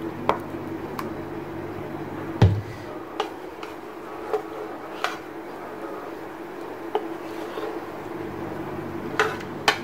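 Wooden spatula tapping and scraping against a nonstick frying pan while loosening an egg and meatball omelette: scattered sharp clicks with one heavier knock about two and a half seconds in, over a steady low hum.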